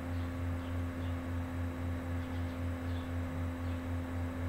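Steady low electrical hum with a fainter higher tone above it, pulsing evenly in level about four times a second.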